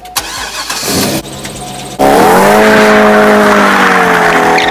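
A 2002 Corvette Z06's 5.7-litre LS6 V8 revving hard in a burnout, the rear tires spinning and squealing in smoke. A shorter, quieter rev comes first. About two seconds in, the sound jumps suddenly to full loudness and holds a high, nearly steady engine note for almost three seconds before it drops away.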